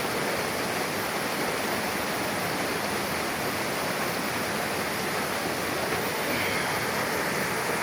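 Mountain river rushing steadily where two streams meet: a constant, even rush of water over rocks.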